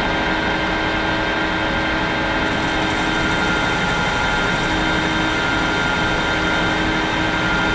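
Sharp metal lathe running steadily with an even hum and several constant whining tones, its spindle turning at about 700 rpm while facing the end of the stock.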